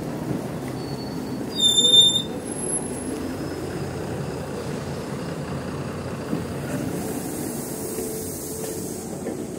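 Steady low hum and rumble around a LiAZ-6274 electric bus standing at a stop. About two seconds in, one loud, high electronic beep from the bus lasts about half a second.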